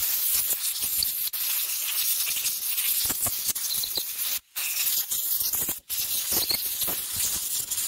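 Compressed-air blow gun hissing as it blows dirt and crud out of a chainsaw's bar-mount area. The air stops briefly twice past the middle, then starts again.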